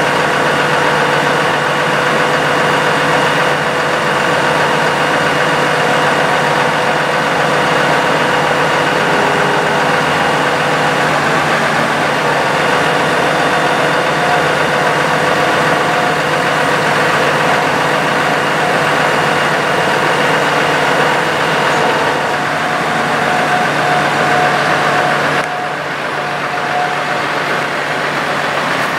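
Ram 5500's 6.7-litre Cummins turbo-diesel running steadily at idle while it powers the Versalift LT56 aerial lift's hydraulics as the boom is lowered to its rest, with steady whining tones over the engine. The level drops a little near the end.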